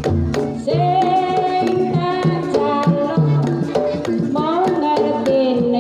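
A sinden sings a long, wavering melismatic line over Banyumasan tayub gamelan: hand-played kendang drum strokes and struck bronze kettle gongs. The voice comes in about a second in, and its pitch slides upward near the end.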